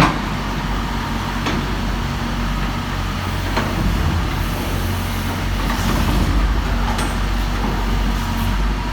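Heavy vehicle engine running steadily at idle, a low even hum, with a few short clicks and knocks over it.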